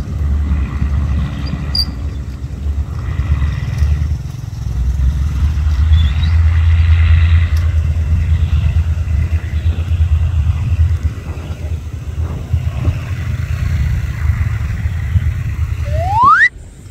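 Diesel train running past with a steady low engine rumble and some rattling clatter that swells about five seconds in. Just before the end a brief rising tone sounds, then the sound cuts off suddenly.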